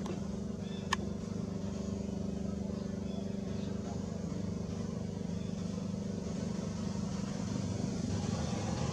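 A motor running steadily, a low hum with several held tones, with one sharp click about a second in.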